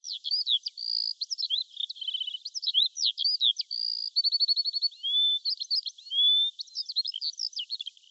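A songbird singing a long, varied song of quick whistles, slurred notes and trills, with runs of rapid repeated notes about two and four seconds in.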